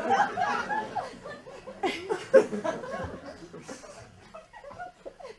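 Audience laughing, loudest over the first three seconds and dying away toward the end.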